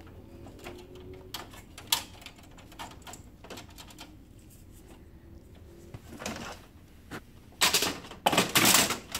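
Plastic parts of an HP LaserJet laser printer being handled and refitted: scattered light clicks and taps, then a burst of louder plastic scraping and rattling about seven and a half seconds in as a panel is moved.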